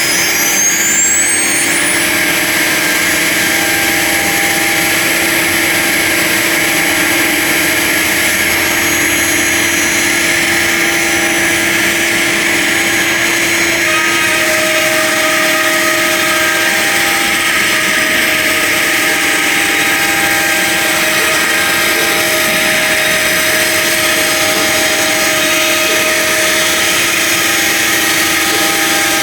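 CNC router spindle running with a steady, loud high whine; its pitch finishes climbing and levels off about two seconds in. In the second half, shorter mid-pitched motor tones come and go over it.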